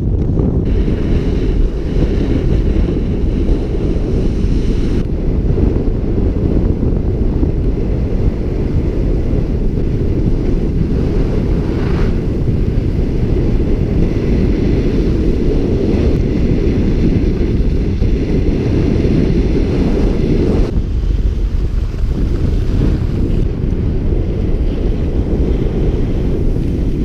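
Wind buffeting a GoPro action camera's microphone during a ski descent: a loud, steady, low rumble, with the faint scrape of skis on packed snow above it.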